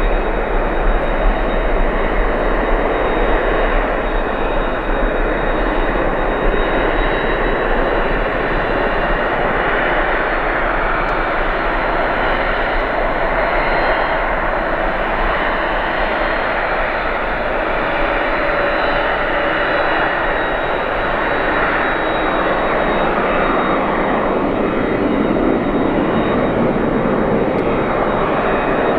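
Airbus A350 airliner's Rolls-Royce Trent XWB jet engines running, a loud steady rush with a thin high whine, joined by a fainter lower whine in the second half.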